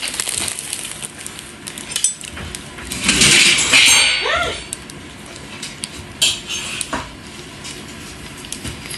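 Kitchen clatter: dishes and metal utensils knocking and clinking in scattered, irregular clicks. A louder rush of noise lasts about a second and a half, starting about three seconds in.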